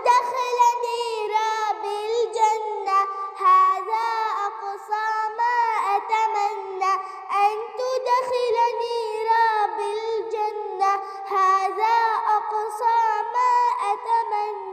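A child's voice singing a flowing melody with wavering, ornamented pitch and no words the recogniser could pick out: the sung opening of a children's Arabic nasheed.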